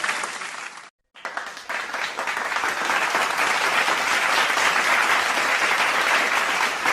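Crowd applause: one round fades out and stops about a second in, and after a short gap another round of applause starts and carries on steadily.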